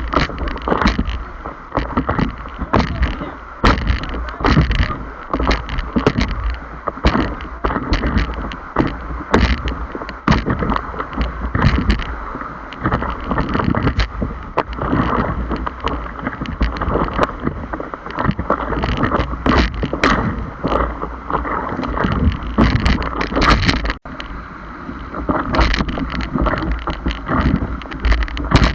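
Paddling through rough water on a paddleboard: constant splashing with frequent irregular knocks, over a heavy low rumble.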